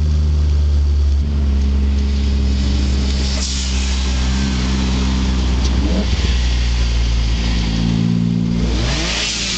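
Car engines running at low revs, a steady deep hum with small shifts in pitch, as a Mk3 Volkswagen Golf VR6 rolls slowly up close. Near the end the sound brightens with a brief rise in revs.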